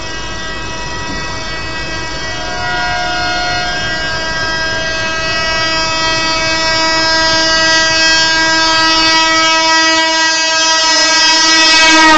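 Punjab Mail locomotive's horn sounding one long unbroken blast at high speed, growing steadily louder as the train closes in and dipping in pitch right at the end as it draws level. The running noise of the train it is heard from rumbles underneath.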